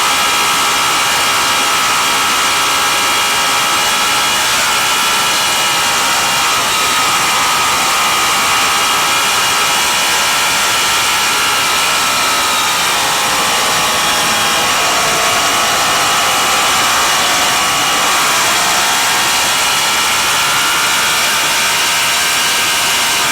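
Racing motorcycle engine running hard at high revs. Its pitch dips and climbs again about halfway through and again near the end, as the bike eases off and accelerates.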